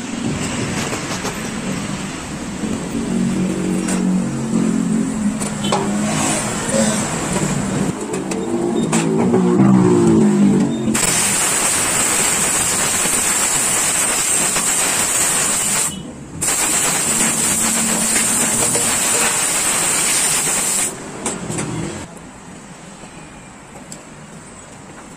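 Compressed-air blow gun blasting air through a motorcycle carburetor to clean it out: a loud, steady hiss in two long blasts of about five seconds each, split by a brief pause. Before the air starts, a low engine rumble rises and falls for about ten seconds.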